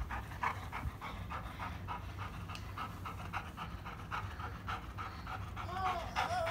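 Dog panting quickly and evenly, with a toy held in its mouth during a game of tug.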